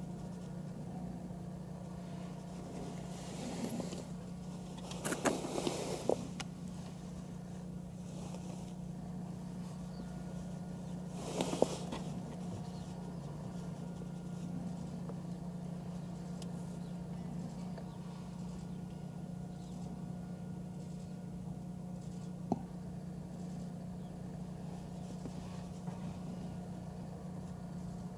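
A steady low hum, broken by two brief bursts of rustling noise about five and eleven seconds in and a single sharp click later on.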